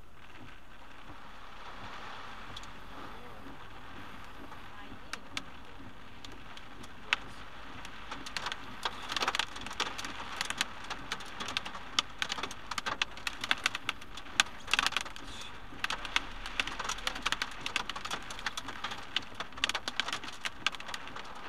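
Rain striking a car's windscreen and roof, heard from inside the car over a steady hiss. From about eight seconds in, the hits of heavy drops come thick and sharp as the downpour strengthens.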